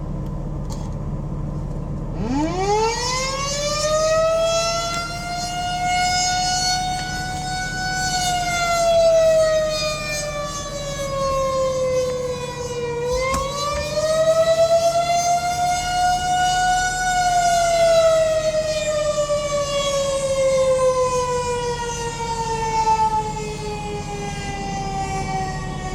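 Federal Signal 2001-130 rotating single-tone electromechanical warning siren being tested. It winds up steeply about two seconds in, holds, sags, winds back up about halfway through, then winds slowly down. Its loudness swells and fades every few seconds as the horn turns.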